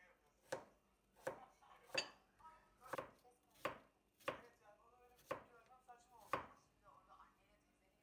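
Knife chopping food on a cutting board in slow, separate strokes, about nine strikes spaced a little under a second apart.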